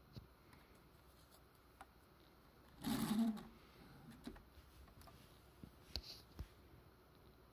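Handling noise from a hand working on the plastic Lego car: a brief rustling scrape about three seconds in, then a few light clicks near the end.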